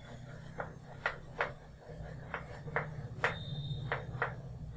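Chalk writing on a chalkboard: about eight short tapping and scraping strokes as letters are formed, with a brief high-pitched chalk squeak about three seconds in.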